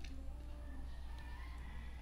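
Steady low hum, with a light click at the start as fingers pick food from a small plate, and faint sliding pitched tones in the background.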